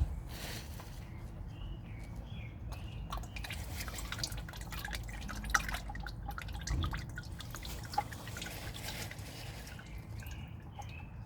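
Engine oil dripping and trickling into a drain pan from the oil filter mount just after the filter is unscrewed. There is a knock right at the start, and the drips come thickest in the middle.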